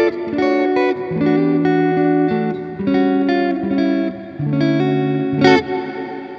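Electric guitar played through a Strymon Cloudburst ambient reverb pedal with its Mod knob turned all the way up, so the long reverb tail wavers and swirls. Picked notes and chords overlap and ring into each other; a strummed chord about five and a half seconds in rings out and fades.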